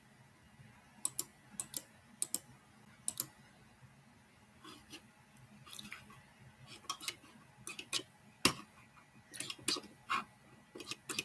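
Computer mouse clicking at irregular intervals, often in quick pairs, with one louder click about eight seconds in.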